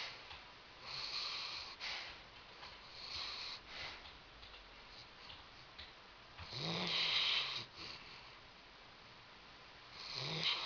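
Dog snoring, a hissy snore on each breath every few seconds, the loudest about seven seconds in.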